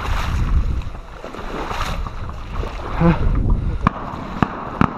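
Wading through shallow marsh water and weeds: sloshing, splashing steps and brushing vegetation, with wind on the microphone. Near the end come several sharp clicks about half a second apart.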